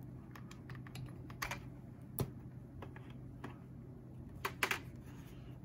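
Scattered small plastic clicks and taps from handling a hand-crank LED lantern, as its charger plug and fold-down crank handle are worked. The sharpest click comes about two seconds in, and a quick pair of clicks comes near the end.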